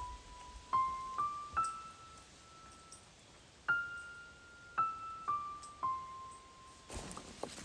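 Background music: a slow, gentle keyboard melody of single notes, each struck and held for half a second to two seconds, moving up and down by small steps.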